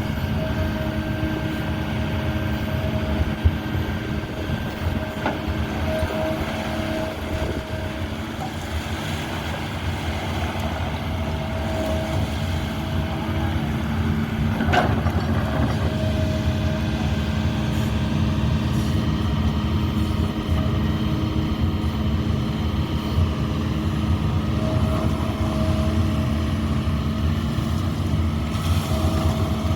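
Excavator's diesel engine running steadily under load, with a higher whine that comes and goes and a sharp knock about halfway through.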